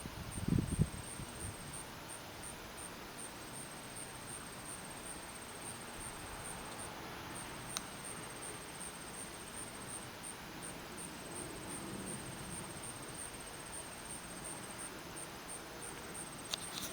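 Steady outdoor hiss with a high, evenly pulsing insect trill throughout, and a brief low buffet about half a second in.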